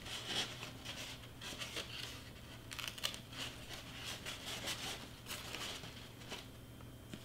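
Hands pressing and smoothing glued paper flaps down onto foam board: faint, irregular rustling and crinkling of paper, with a sharper tap about three seconds in.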